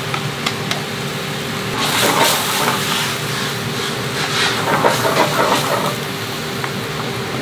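Canned whole tomatoes poured into a frying pan of simmering shrimp stock, then stirred and broken up with tongs: wet sloshing and squelching, loudest about two seconds in and again around five seconds, over a steady hum.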